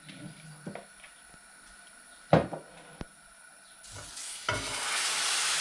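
Crêpe batter sizzling as it is ladled into a hot, oiled frying pan, swelling up about four seconds in and then staying loud. Before that, a single knock of the ladle in the batter bowl.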